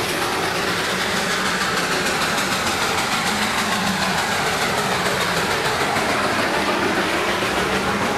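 Darjeeling Himalayan Railway B-class steam tank locomotive working past at close range, a steady mix of exhaust beats and escaping steam with its carriages rolling along behind.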